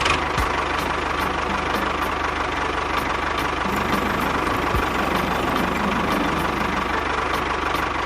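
Small electric motor and gearing of a DIY model construction vehicle running steadily: a constant whine over a fast buzzing rattle.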